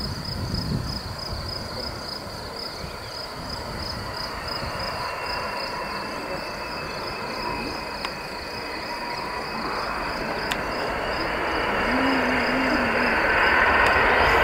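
The three jet engines of a McDonnell Douglas MD-11F freighter running during its landing roll-out, a turbine whine coming in a few seconds in and the noise growing steadily louder toward the end as the aircraft comes nearer. Crickets chirp steadily underneath.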